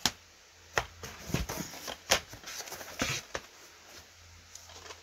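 Plastic DVD cases being handled and shuffled: a few sharp clacks, the loudest near the start and about two seconds in, with rustling between them.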